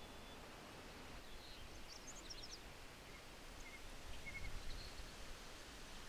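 Quiet outdoor ambience: a faint even hiss with a few brief, faint bird chirps, a cluster about two seconds in and a few more around four seconds in. A soft low rumble swells in the second half.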